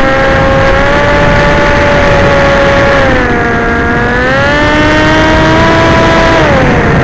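Electric motor and propeller of a radio-controlled model aircraft whining in flight, its pitch dipping about three seconds in, climbing again and dropping near the end as the throttle changes, over a rushing wind noise.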